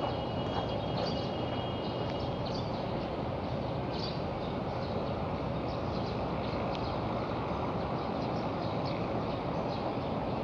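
Steady low outdoor background rumble with faint light ticks scattered above it.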